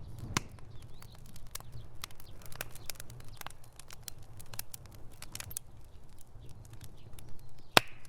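Wood fire crackling in a fireplace: irregular snaps and pops over a low rumble of flames, with one sharp, louder pop near the end.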